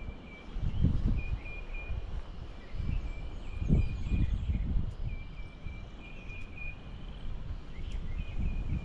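Wind gusting across the microphone in uneven rumbling buffets, strongest about a second in and again around four seconds. Behind it runs a faint, steady high-pitched trill that comes and goes.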